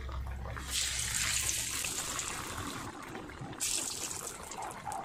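Beetroot vada patty slid into hot oil in a kadai, setting the oil bubbling and sizzling about a second in, with a second, louder burst of sizzling about three and a half seconds in.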